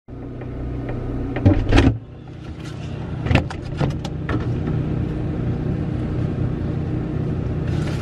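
A steady low mechanical hum, with a few sharp knocks and clatters of a food container being handled on a refrigerator shelf: a pair near the start and three more in the middle.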